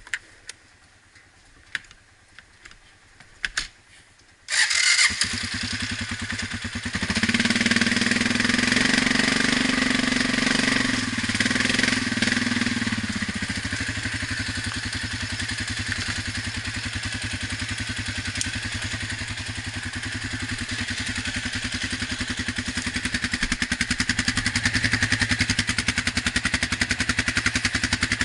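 Suzuki KingQuad 700 ATV's single-cylinder four-stroke engine starting suddenly about four and a half seconds in, after a few clicks. It runs louder for about six seconds, then settles into steady running under way and builds again near the end.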